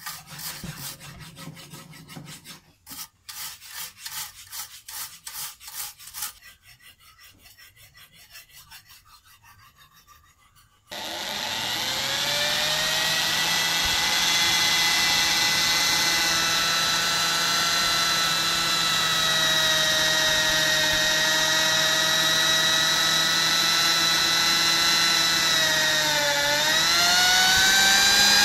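A hand wire brush scrubbing a steel flat bar in rapid back-and-forth strokes, which grow fainter after about six seconds. About eleven seconds in, an electric drill starts and runs steadily, boring into the steel bar, its pitch dipping briefly under load near the end.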